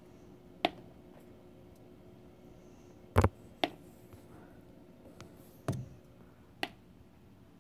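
Water dripping from a ceiling leak. Five sharp drops land on a hard surface at irregular intervals, the loudest about three seconds in and quickly followed by another, over a faint steady hum.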